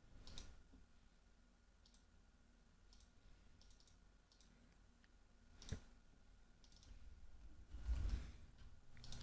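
A few faint, separate clicks from working a computer, spaced a second or more apart, with the loudest a little past halfway.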